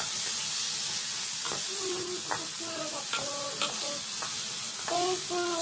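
Bottle gourd strips and shrimp sizzling in a hot pan as a wooden spatula stirs them: a steady frying hiss. Several short pitched sounds come in from about a second and a half in.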